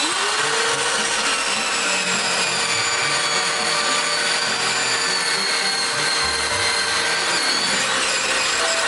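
Porter-Cable Restorer spinning up with a rising whine, then running steadily as it buffs a cedar wood slab.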